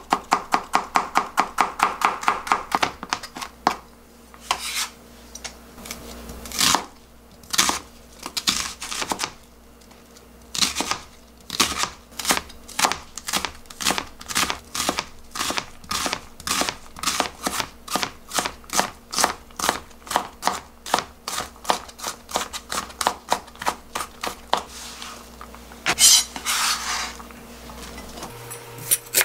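Chef's knife chopping a peeled onion on a plastic cutting board: quick, even strikes, about five a second for the first few seconds, then slower and uneven. Near the end there is a brief scraping as the diced onion is swept off the board into a pan.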